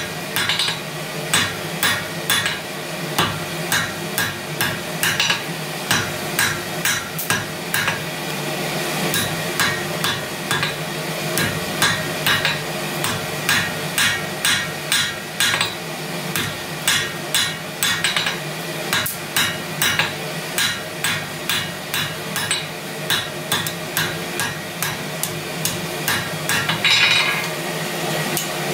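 Ball-peen hammer striking red-hot round steel bar on an anvil, a steady run of blows about two to three a second.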